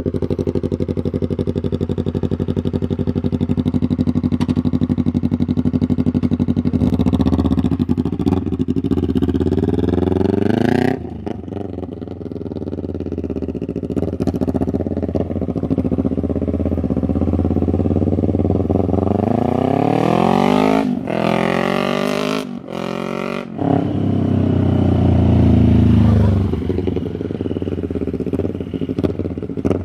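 Yamaha motorcycle with an Austin Racing aftermarket exhaust, held in neutral and revved for a sound check. It runs steadily at first, then is revved up several times, the pitch climbing and falling away sharply. There are a couple of quick throttle blips near the middle of the later revs.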